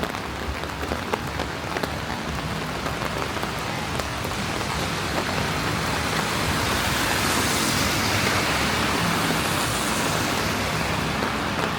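Steady rain on wet city pavement, with single drops ticking close by. A vehicle's tyres hiss past on the wet road, swelling from about four seconds in and fading near the end.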